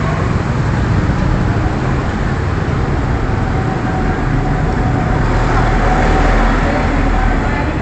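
Steady road traffic noise from cars and motorcycles driving through an underpass: a dense, continuous rumble of engines and tyres.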